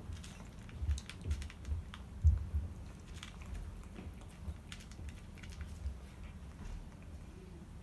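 Cats chewing cat food: irregular quick clicks and chewing noises, with a louder one a little over two seconds in.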